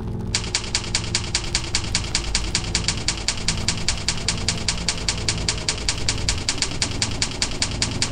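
Typewriter keys striking in a fast, even run of about nine or ten clicks a second, starting a moment in, with low sustained background music beneath.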